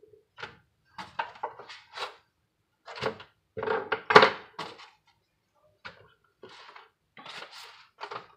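Kitchen handling noises: a disposable aluminium foil pan knocking and crinkling as corn tortillas are laid into it, in a run of short clatters with gaps between, the loudest about four seconds in.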